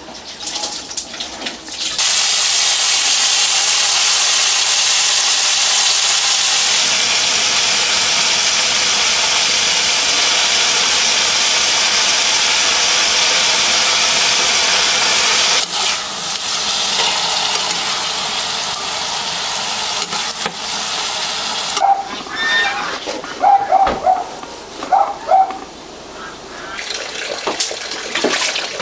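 Tap water gushing hard into a concrete sink, a loud steady rush, softening after about a quarter of a minute. Near the end come quieter splashing and the knocks and clinks of bowls and a plastic basin being handled in the sink.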